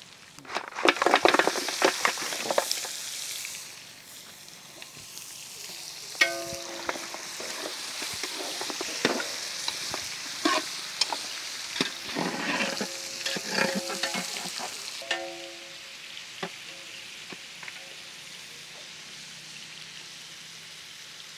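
Mutton marrow-bone pieces dropping into hot oil and ghee in a large metal pot, a loud clatter and burst of sizzling in the first few seconds, then steady frying. A metal spatula scrapes and clanks against the pot through the middle, the pot ringing with each strike, before the sizzle settles on its own near the end.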